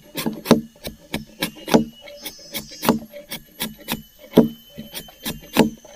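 Machete blade shaving a stick of pale, soft wood held upright against a log, carving it into a cooking spatula: quick, repeated scraping cuts, about three or four a second.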